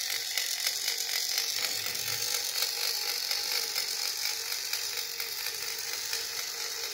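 Small electric oil pump running, with a fast, steady mechanical ticking as it pumps two-stroke oil to the engine.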